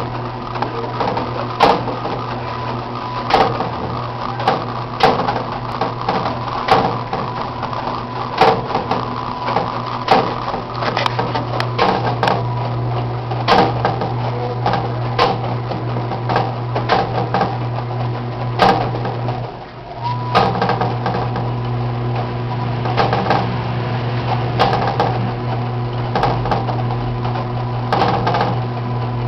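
Enxuta washing machine running: a steady motor hum with a sharp mechanical clack about every one and a half to two seconds, the sound dipping briefly about twenty seconds in before carrying on. The machine is on its first wash after sitting unused for seven and a half years.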